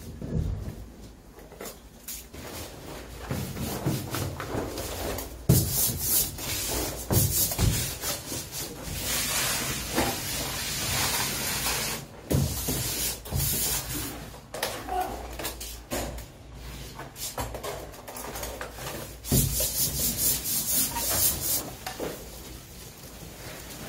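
Hand sanding of a puttied wall: irregular rubbing and rasping strokes, coming in uneven runs, with a few scattered knocks.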